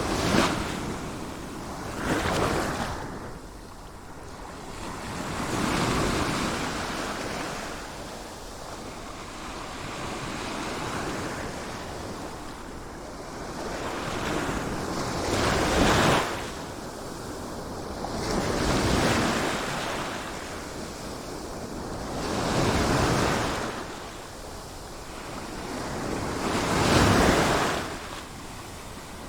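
Sea waves breaking and washing in, one after another. Each wave swells to a crash about every three to four seconds, then falls back into a steady hiss.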